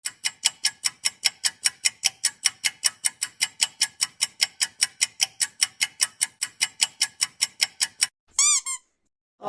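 Ticking sound effect: an even run of sharp, bright ticks, about four or five a second, that stops suddenly after about eight seconds, followed near the end by a short high squeaky chirp that wobbles in pitch.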